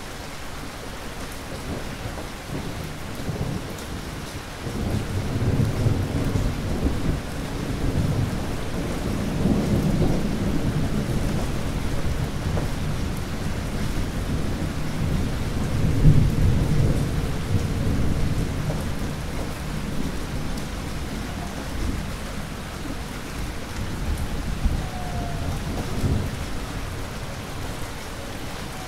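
Steady heavy rain with thunder rumbling low and long. The rumble swells about five seconds in, is loudest around the middle and dies away near the end.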